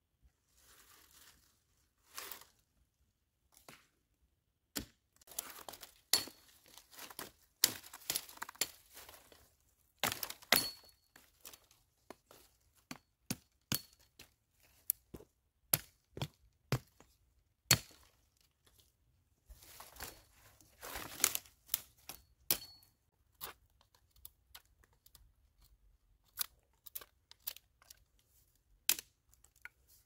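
Dead pine branches and twigs snapping and crackling as they are broken up for firewood: an irregular string of sharp cracks and crunches with short pauses between them.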